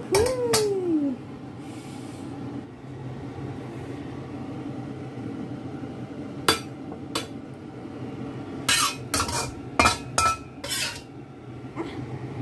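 A metal utensil clinking and scraping against a plate and wok as stir-fried greens are stirred and served: two single clicks a little after halfway, then a quick run of clinks and scrapes, over a steady low hum. A short falling tone sounds at the very start.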